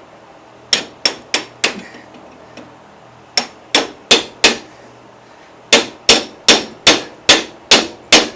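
A hammer striking a steel punch set in the center of a John Deere 120's tight steering pinion gear, driving it off its shaft. Sharp, ringing metal-on-metal blows come in three runs, about three a second: four, then four, then seven.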